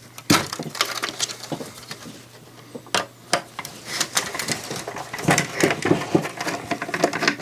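Clicks, taps and small knocks from hands working on an opened CD player, pulling ribbon cables and handling its sheet-metal chassis during disassembly. There are sharper knocks about a third of a second in and around three seconds in, then a busier run of small clicks.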